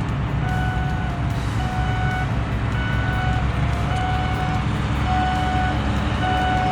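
Reversing alarm of a paving-crew machine beeping about once a second over the steady running of its diesel engine.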